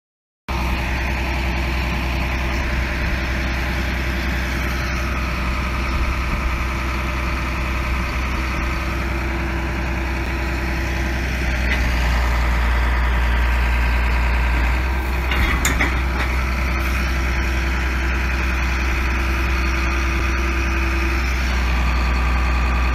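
John Deere 4450 tractor's six-cylinder diesel running steadily, driving a bale processor as it works a round bale. The drone starts about half a second in and holds an even hum, with a couple of brief knocks in the second half.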